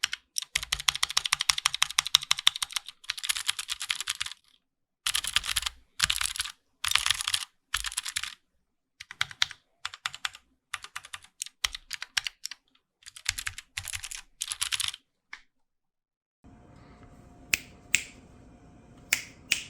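Keychron Q6 full-size mechanical keyboard being typed on in quick bursts of rapid keystrokes, with short pauses between runs. Near the end the typing stops, leaving a faint hum and a few single key clicks.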